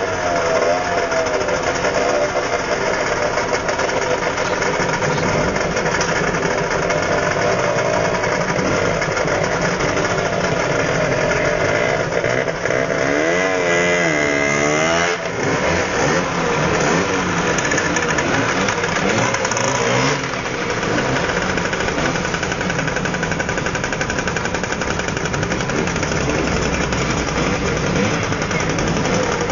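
Several Lambretta and Vespa scooter engines running together at idle, with one revved up and down a few times about halfway through.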